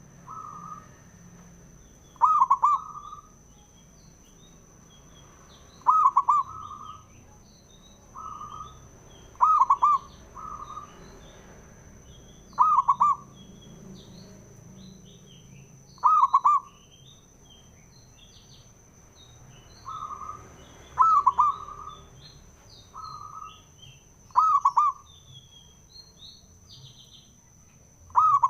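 Male zebra dove (perkutut) cooing: a loud phrase repeated about every three to four seconds, with softer coos between, and small birds chirping faintly in the background.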